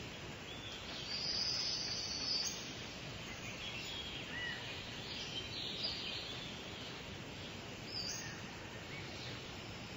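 Outdoor ambience of steady background noise with songbirds calling. A high, held note runs for over a second early on, followed by scattered short chirps.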